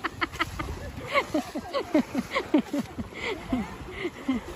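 Elephants wading through shallow river water. Over it comes a quick run of short calls, several a second, each falling in pitch.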